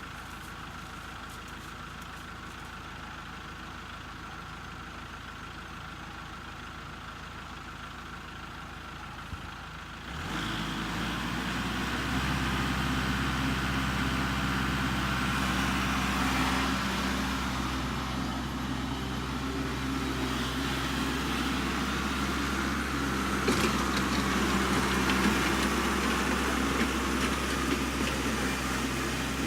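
Kubota MX5800 tractor's diesel engine running steadily, fairly quiet at first, then abruptly much louder about a third of the way in and holding a steady, even drone.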